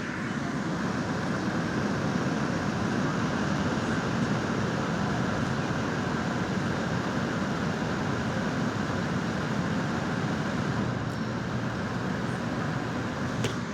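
2010 Everstar 10,000 BTU portable air conditioner running, its fan blowing a steady rush of air with the compressor cooling.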